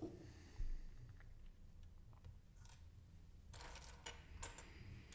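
Hands searching through loose LEGO pieces on the table: a dull thump about half a second in, a few faint plastic clicks, then a spell of rustling and clicking of pieces being shifted near the end.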